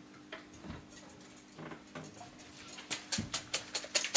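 A few soft kitchen clinks, then from about two and a half seconds in a rapid, even run of sharp knife taps on a chopping board, several a second and growing louder, over a low steady hum.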